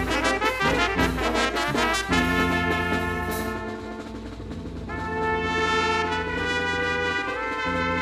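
A Colombian town brass band (banda de pueblo) playing: bass drum, snare and clashed cymbals beat a quick rhythm under the brass for about the first two seconds, then drop out, the cymbals ringing on a moment longer. The trumpets and tuba then hold long sustained chords, softer for a moment near the middle.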